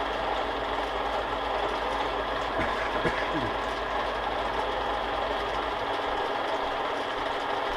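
Small benchtop metal lathe running steadily, turning down the threads of an allthread rod with a light cut.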